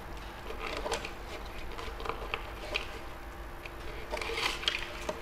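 Faint rustling and small scattered clicks of a ribbon being threaded through and tied onto a plastic bottle, the handling noise a little busier near the end.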